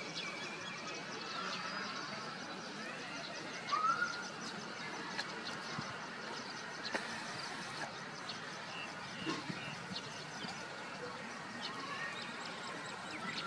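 Rural outdoor ambience with scattered short chirps and small ticks, and one louder rising chirp about four seconds in.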